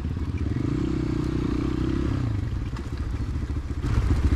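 CrossFire motorcycle engine running under way. Its pitch drops a little past two seconds in as the revs ease off, and about four seconds in it gets louder and rougher as the throttle opens again.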